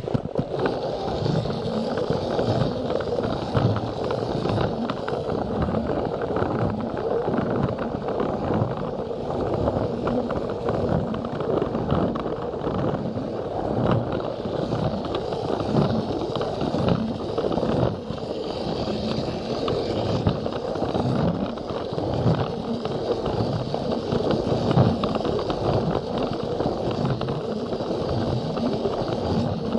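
A Plarail battery-powered plastic toy train running along its track: a steady motor whir with the wheels clattering in frequent clicks over the rail joints.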